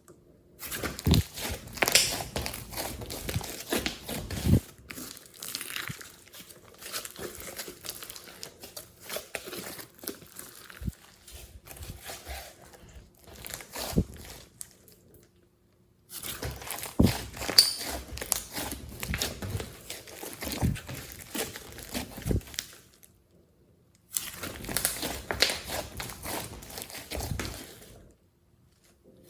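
Glossy slime being kneaded, squished and stretched by hand, giving a dense run of sticky crackles, pops and small clicks. The sound stops briefly a few times between takes.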